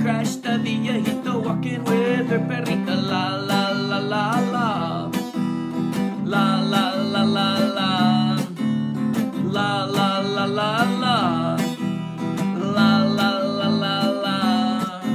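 Acoustic guitar strummed in a steady rhythm, with a man singing over it in several phrases.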